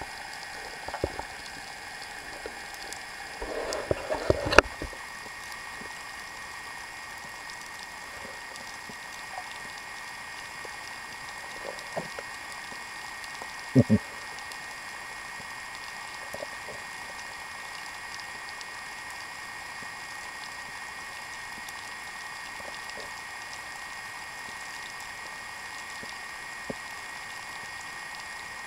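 Underwater ambience picked up through a camera's waterproof housing: a steady hiss with faint scattered crackling clicks. A short cluster of knocks ends in a sharp one about four and a half seconds in, and a double knock comes around fourteen seconds.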